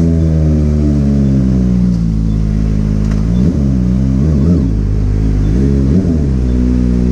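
Motorcycle engine running on the move, its pitch easing down slowly, then several quick rises and falls in revs about halfway through.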